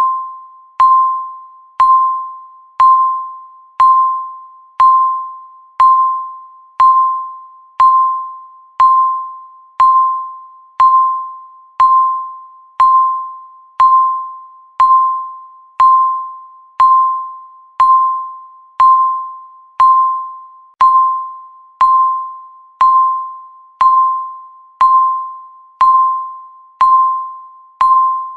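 Countdown timer beeping once every second, marking off each second of the count: a short, high, bell-like electronic beep with a sharp start that fades away before the next one.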